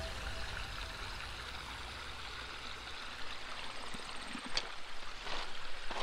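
Backyard pond waterfall running, a steady rush of falling and trickling water, with a few short, sharper sounds in the second half.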